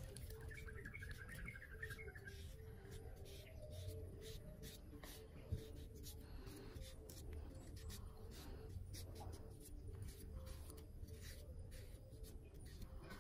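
Faint small clicks and scrapes of a knife cutting through a banana's peel and flesh, with a short high chirping trill near the start.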